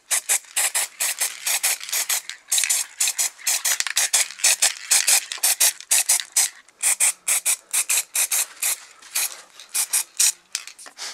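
Aerosol spray paint can hissing in many short bursts, about three a second, with a couple of brief pauses.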